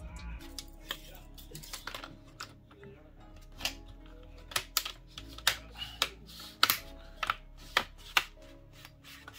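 Plastic LCD bezel of an Acer Nitro 5 laptop being pressed onto the screen, its clips snapping into place in a run of sharp, irregular clicks that come thick and fast in the second half.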